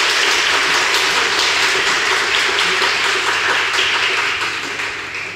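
An audience applauding steadily, the clapping dying away near the end.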